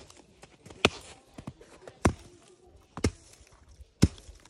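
A wooden stick striking packed snow on a fallen log: four sharp hits about a second apart.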